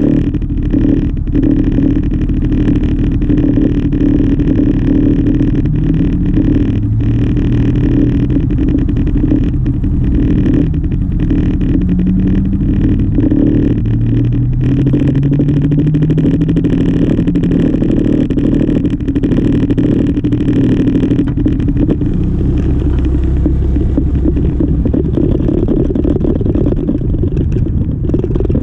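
Yamaha XMAX 300 scooter's single-cylinder engine idling while stopped, as cross-traffic cars pass in front with rising engine notes as they accelerate away. Near the end the scooter pulls off.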